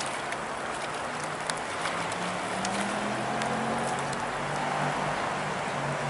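Shallow river water running, with scattered drips and small splashes from a cast net being hauled in. A faint low hum that shifts pitch in steps comes in after about a second.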